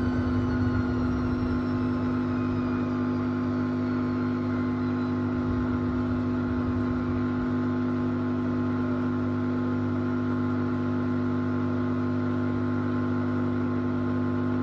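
Hoover Optima OPH716DF washing machine drum spinning down after a 1600 rpm spin, its motor whine falling in pitch and fading over the first few seconds, over a steady hum that carries on.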